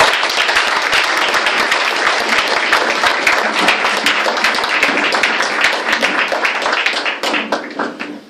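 A roomful of people applauding, a dense even clapping that thins out and stops near the end.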